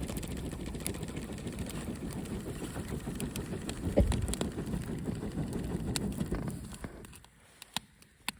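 Rapid fluttering rush of air from a hand fan being waved hard at a smouldering campfire of damp wood to get it to catch. One knock about four seconds in; the fanning stops about seven seconds in.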